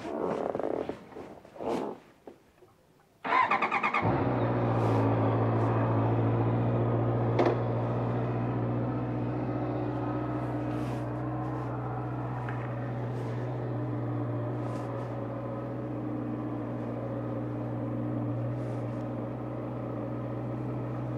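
Honda CBR650R's inline-four engine cranked on the electric starter about three seconds in, catching within a second and settling into a steady idle. A few brief handling noises come before the start, and a single click about seven seconds in.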